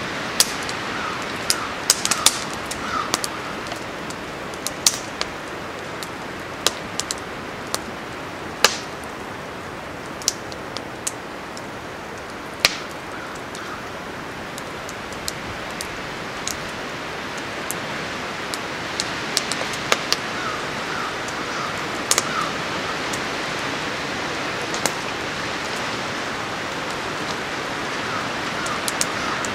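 Small stick-and-brush wood fire crackling, with sharp, irregular pops, over a steady rush of wind through the trees.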